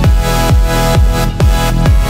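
Electronic dance music with a steady kick drum, about two beats a second, under sustained synth chords.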